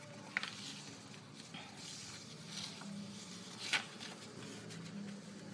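A sheet of paper being handled and folded by hand on a wooden table: soft rustling, with two sharp crackles, one about half a second in and a louder one near four seconds, as creases are pressed.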